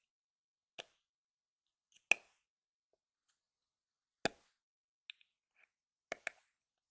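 Chapstick cap popping on and off the tube, a sharp plop every second or two with two quick pops together near the end.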